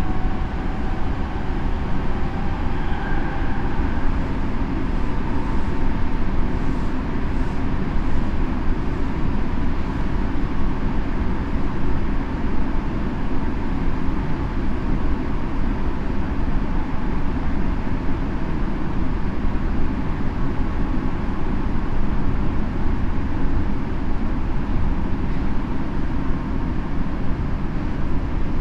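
Tokyo Metro 7000 series subway car running at speed: a steady, loud rumble of wheels on rail. A faint whine fades out within the first few seconds.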